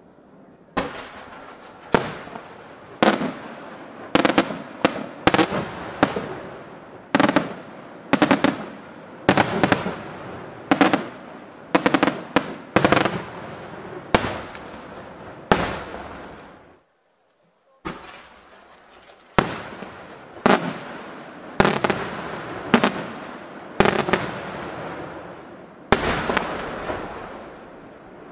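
Aerial firework shells bursting one after another, about twenty sharp bangs at irregular intervals, each trailing off in a long rolling echo. The sound drops out for about a second partway through.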